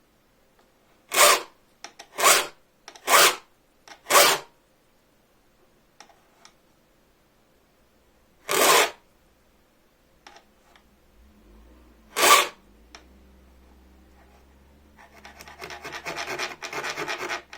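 A hand file cutting teeth into a bow-saw blade: four slow, separate strokes in the first few seconds, two more spaced well apart, then quick, even filing strokes near the end.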